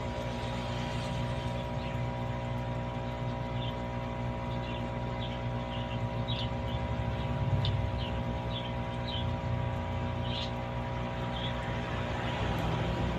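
Steady mechanical hum with several fixed tones over a low rush, dotted with short high blips.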